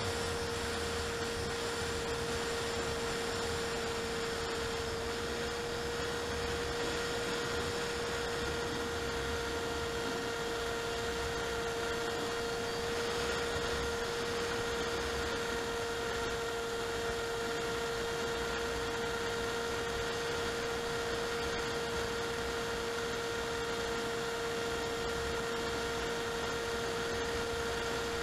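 Electric motor and propeller of an FPV model aircraft, heard through its onboard camera, running at a steady pitch: one held whine over a steady hiss of airflow.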